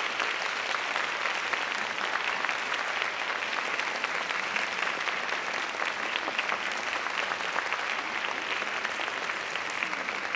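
Theatre audience applauding steadily, a dense even clapping that eases slightly near the end.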